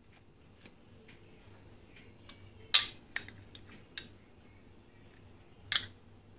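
A metal spoon clinking against a glass jar and mixing bowl as pickled jalapeño slices are spooned out: four short sharp clinks, the loudest about three seconds in, over a faint low hum.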